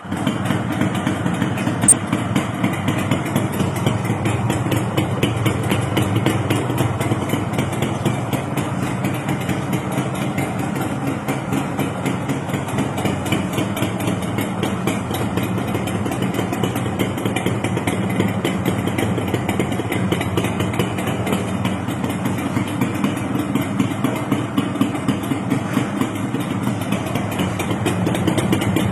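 Yamaha YB 100 motorcycle's single-cylinder two-stroke engine idling steadily, with one sharp click about two seconds in and the engine getting a little louder near the end.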